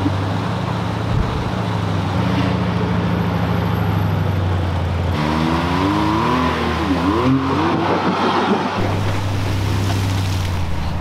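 Off-road vehicle's engine running steadily, with its pitch rising and falling for a few seconds in the middle as it is revved.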